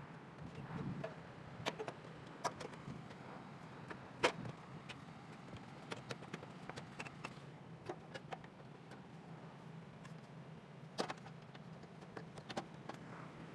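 Scattered light clicks and knocks as a car fender panel is handled and worked into place behind its mounting brackets, the strongest about four seconds in and again near the end.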